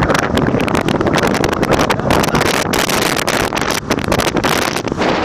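Loud wind buffeting the microphone of a moving motorbike, a rough, churning rush with no clear engine note.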